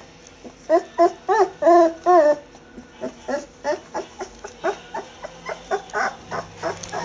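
Two-week-old Bouvier des Flandres puppies whimpering: five loud cries, each arching up and down in pitch, in quick succession about a second in, then a long run of shorter, fainter squeaks at about three or four a second.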